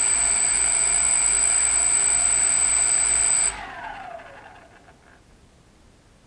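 DJI Phantom FC40 quadcopter's brushless motors spinning its new propellers with a steady high whine, then switched off about three and a half seconds in and winding down with a falling pitch.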